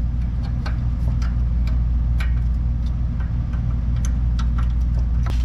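A steady low mechanical hum runs throughout, with scattered light clicks and ticks from hand tools working on the brake line fittings.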